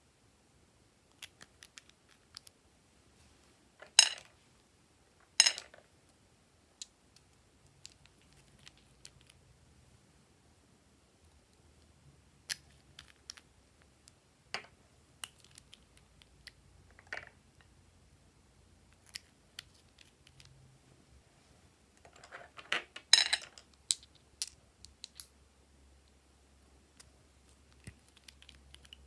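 Scattered light clicks and taps of small plastic nail polish bottles and caps being handled, opened and closed. There are two louder knocks a few seconds in and a short cluster of them later on.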